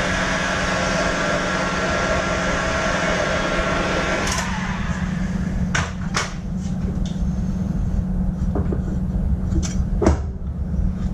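A workshop machine running with a steady whine, then winding down in pitch and stopping about four seconds in. A low steady hum carries on, with a few sharp clicks and knocks, the loudest near the end.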